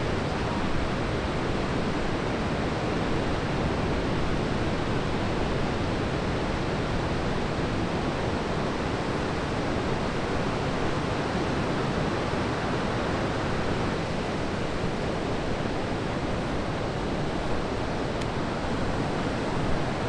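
Steady wash of breaking ocean surf from large waves, a continuous even noise with no single crash standing out.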